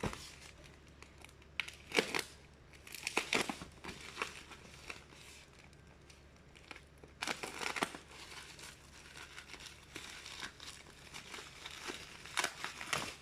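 Parcel packaging being torn open along its seam and crinkled by hand, in irregular rustling, crackling bursts with short pauses between them.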